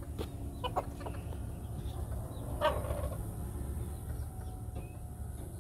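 Silkie rooster clucking softly: a few short clucks near the start and a louder one about two and a half seconds in, over a steady low rumble.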